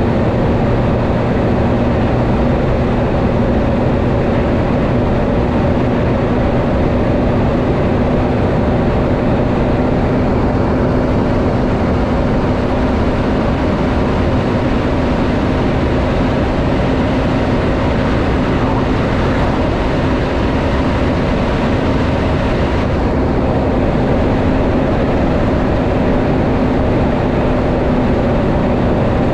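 Semi-trailer truck's diesel engine and tyres, a steady drone with an even engine hum while cruising at constant speed.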